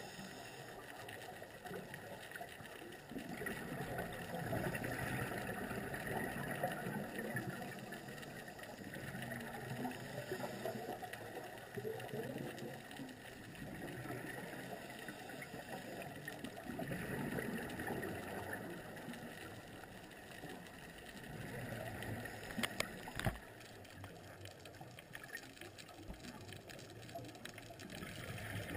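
Scuba regulator breathing heard underwater, muffled: a hiss and gurgle of inhaling and bubbling exhalation that swells and fades every few seconds. A few sharp clicks near the end.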